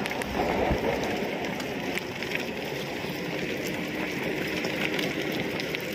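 Steady wind rush and road noise from riding, buffeting the microphone, with a faint steady hum from about halfway in.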